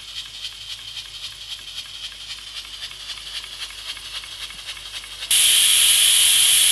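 Aluminium pressure cooker cooking chana dal under pressure: a quick, even ticking with a faint hiss from the weight valve, then about five seconds in, steam suddenly blasts out in a loud, steady hiss as the weight lifts. The cooker is at full pressure and venting.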